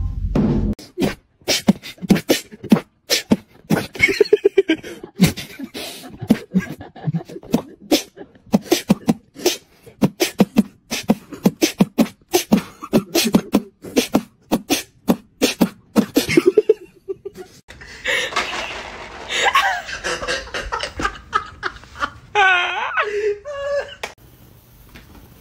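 Beatboxing: a fast, uneven run of mouth clicks and pops mixed with short voiced notes, which stops abruptly about seventeen seconds in. It is followed by a noisier stretch with laughter.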